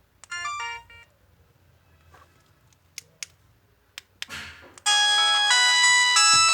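LG MG160a phone alarm tones: a brief run of fast electronic notes right at the start, then a quiet gap with a few sharp clicks, and about five seconds in a loud many-noted electronic alarm melody starts up.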